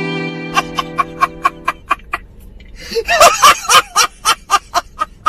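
A held music chord fades out while laughter starts: short, evenly spaced "ha" pulses about four a second, with a louder burst of laughing about three seconds in.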